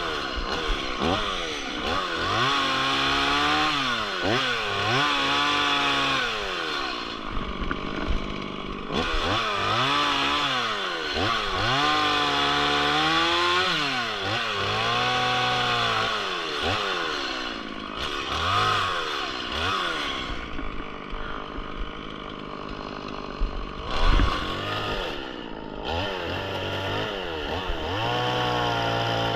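Stihl MS 180 two-stroke chainsaw running, its engine pitch repeatedly rising and falling as the throttle is worked and the chain takes load, with a quieter stretch a little past the middle. One sharp knock about three-quarters of the way through.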